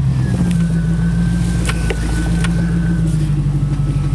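The 4.7-liter V8 of a lifted 2001 Jeep Grand Cherokee runs steadily at low revs while crawling down a steep off-road slope, heard from inside the cab. A faint steady whine sits above it, and a few sharp knocks come through.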